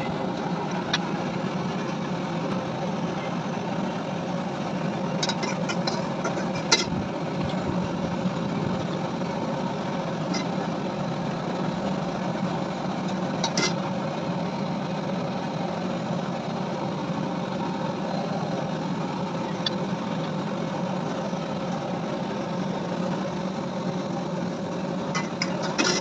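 A steady mechanical hum or drone with a few short, sharp clicks or taps.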